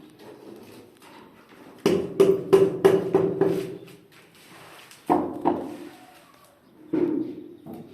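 Repeated hammer blows: a quick run of about five strikes about two seconds in, two more just after five seconds, and one more near seven seconds, each ringing briefly.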